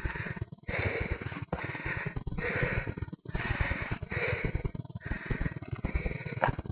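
A person breathing hard close to the microphone, quick, rasping breaths about one a second, over a steady low rumble on the microphone.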